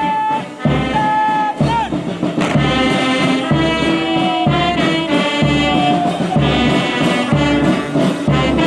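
Brass band music with a steady beat, coming in suddenly at full volume.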